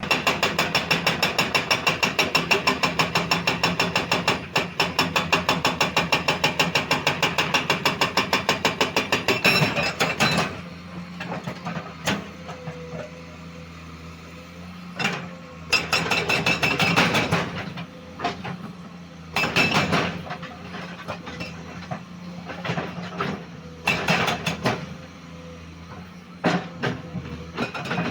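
Komatsu PC210 hydraulic excavator working: a fast, even clattering of metal strikes, about five a second, for roughly the first ten seconds. Then the diesel engine runs steadily under irregular clanks and surges of noise.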